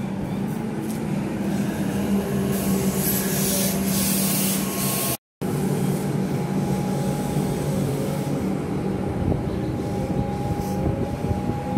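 Melbourne suburban electric trains at the platform: a Comeng train running in with a steady electrical hum and a hiss partway through. After a cut, another electric train with the same hum pulls away, its traction motors whining up in pitch.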